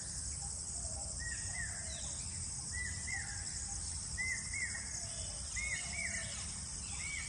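Steady high-pitched shrilling of a chorus of crickets (jhingur), with a bird repeating a short two-note call about every second and a half over it.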